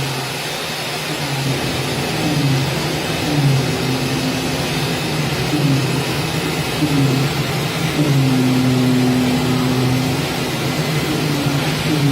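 CNC oscillating-knife gasket cutting machine running: a steady hum and hiss, with a motor tone that glides up and down in short sweeps and holds one pitch for a couple of seconds about eight seconds in.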